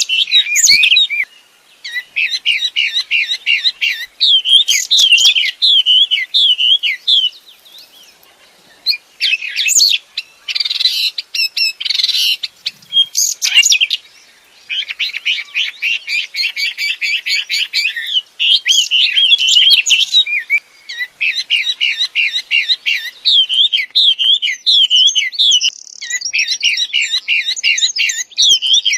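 Wambi songbird singing a loud, fast song of rapidly repeated chattering and sweeping whistled notes, in long phrases broken by a couple of short pauses.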